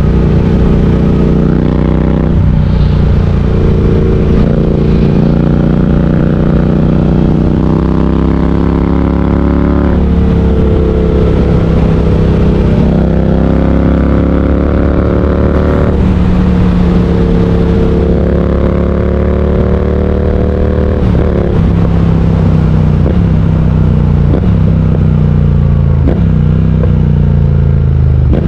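Triumph Speed Twin 1200's parallel-twin engine running under way, its pitch climbing and falling with throttle and gear changes. Near the end it rises and drops in short steps every second or two.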